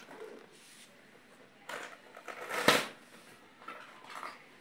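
Cardboard toy box and its plastic packaging being handled and opened by hand: rustling and scraping, with one louder, sharp noise a little under three seconds in.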